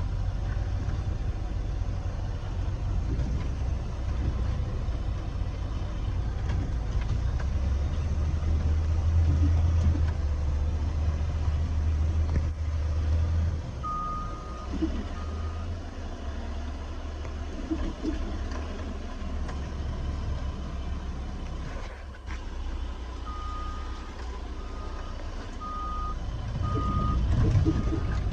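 Heavy diesel machinery running with a steady low drone that eases off about halfway through. A backup alarm beeps twice about halfway through and again in a run of beeps near the end, the sign of a machine reversing.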